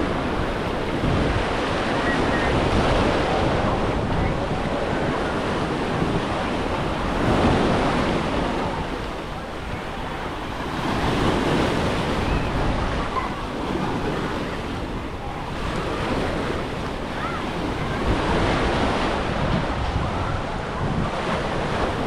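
Sea waves breaking and washing up the beach, rising and falling in swells every few seconds, with wind rumbling on the microphone.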